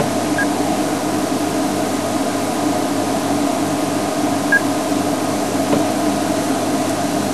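Steady low engine hum, as of a game-drive vehicle idling, with two faint short chirps.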